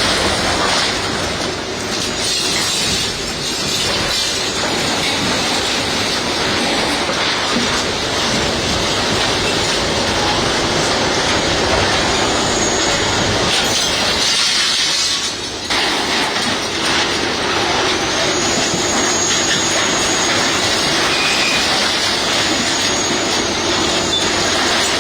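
Heavy tracked demolition machine such as a bulldozer running, with continuous clanking and grinding and high metal squeals now and then. The sound dips briefly about two thirds of the way through.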